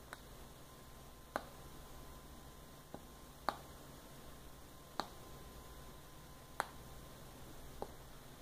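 Small tactile push-button switches on a circuit board clicking as a finger presses them: seven sharp clicks, about one every second and a half, over a faint steady high tone.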